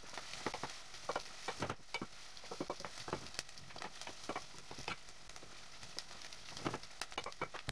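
Onions, green peppers and dried tomatoes frying with a faint steady sizzle in a stainless steel pot, while a wooden spoon stirs them, knocking and scraping irregularly against the pot.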